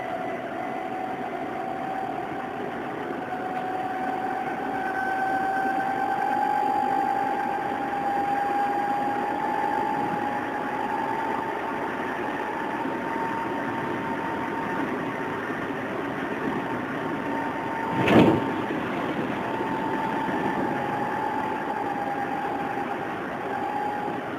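Odakyu 8000 series electric train with field-chopper control running: a steady whine over the rolling noise rises slowly in pitch for about ten seconds, levels off, then eases slightly. A single sharp bang stands out about three-quarters of the way through.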